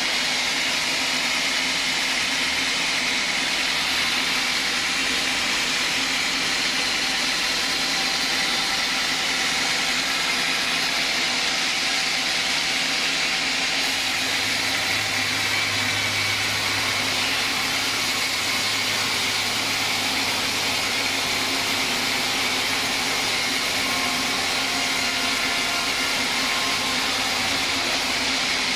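Band sawmill running steadily, its blade cutting lengthwise through a log with a continuous whining hiss of blade and machine. A low hum joins about halfway through and fades near the end.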